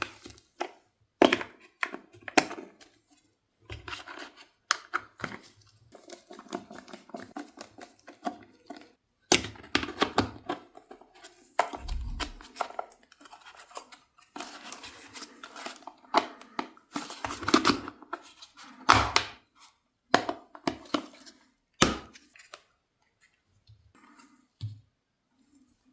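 Packaging being handled and opened by hand: irregular rustling and tearing with knocks and clicks of cardboard and plastic being moved and set down.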